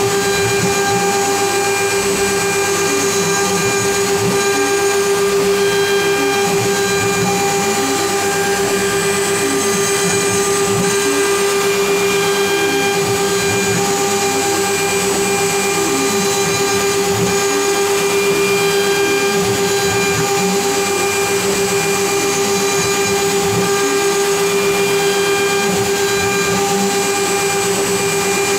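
CNC router's spindle running with a steady high whine while a ball end mill makes a contouring pass in wood. Lower tones shift and change underneath as the machine's axes move the cutter back and forth.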